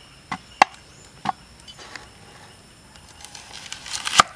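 Large knife cutting a raw onion on a wooden chopping board: a few sharp taps, then a crisp crunching slice that builds and ends in a loud knock of the blade on the board near the end.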